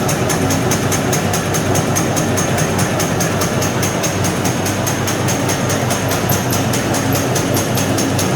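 SZ-605 meatball forming machine running: a steady motor hum with a fast, even clicking from its forming mechanism.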